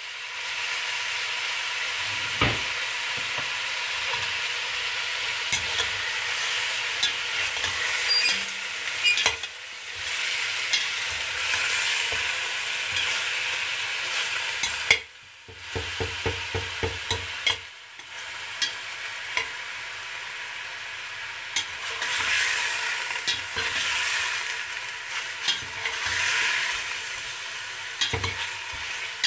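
Chicken pieces sizzling as they fry in a stainless steel stockpot, stirred with a metal spoon that knocks and scrapes against the pot now and then.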